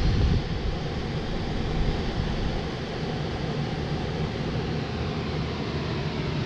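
A row of many electric fans of different kinds (box fans, oscillating pedestal and table fans, floor air circulators) running together, making a steady, even rush of air.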